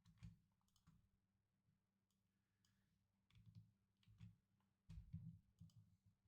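Near silence broken by faint, irregular clicks and taps of a computer mouse and keyboard, in small clusters.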